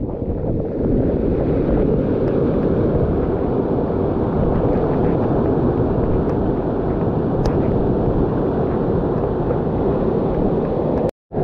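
Water rushing and churning over a small rock waterfall in a rain-swollen forest stream, heard close up as a steady, deep rushing. It cuts out for a moment just before the end.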